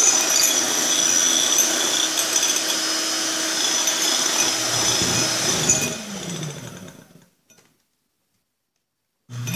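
Electric hand mixer running steadily, whisking egg whites in a bowl toward firm peaks. About six seconds in it winds down with a falling pitch and fades out. After about two seconds of dead silence it starts up again with a rising whine near the end.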